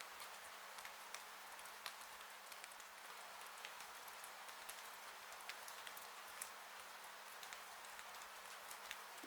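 Rain falling on a porch roof: a faint, steady hiss with many individual drops ticking irregularly on top of it.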